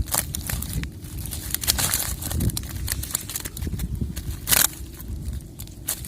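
Crackling, rustling handling noise made of many short clicks, with one louder rustle about four and a half seconds in, over a steady low rumble.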